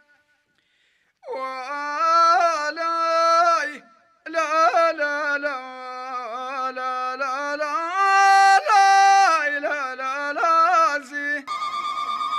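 Solo melodic opening of a Moroccan Tashelhit rais song: after about a second of silence, a single gliding, ornamented melody line in phrases with short breaks. Near the end a different, steadier sound takes over.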